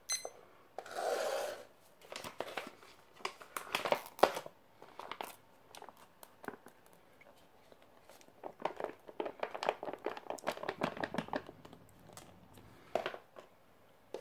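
A digital kitchen timer beeps once as its button is pressed. Then a foil freeze-dried meal pouch crinkles and crackles in bouts as it is handled and rehydrated chicken curry is tipped out of it.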